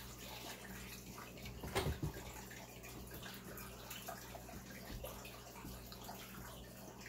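Tea poured in a thin stream from a glass pitcher into a small porcelain tasting cup, over a steady low hum. About two seconds in there is one short, louder knock, like the cup or pitcher touching the tray, then a few small ticks.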